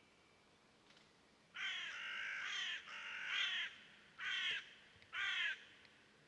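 A bird giving four harsh calls: two longer ones run close together, then two shorter ones after a short gap.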